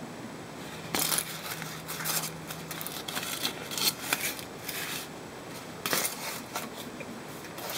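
Cellophane bag and foil-wrapped chocolate eggs crinkling as they are handled, a run of sharp crackles that starts about a second in and dies away after about six seconds.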